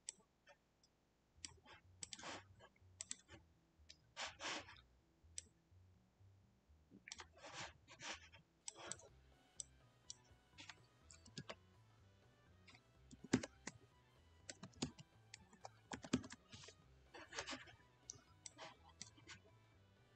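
Faint clicking of a computer keyboard and mouse: scattered single clicks and short runs of keystrokes.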